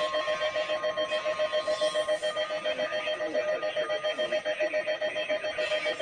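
Weather radio receiver's alert alarm beeping in a rapid, even pulse of about six beeps a second, signalling a severe thunderstorm warning. A fainter, higher steady tone runs under it for about the first two seconds.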